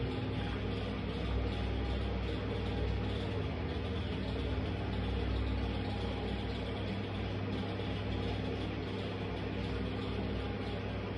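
Steady low mechanical hum that holds level throughout, with no distinct squelches or footfalls standing out.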